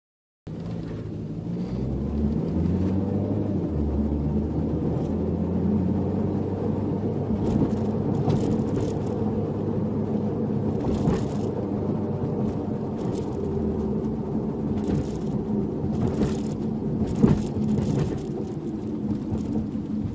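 Car driving noise: the engine pulls away and settles into a steady drone with road rumble, and several short, sharp knocks come through in the second half, the loudest about 17 seconds in. The knocks are the rattle from the luggage partition net and tonneau cover area, set off by bumps at road and bridge joints.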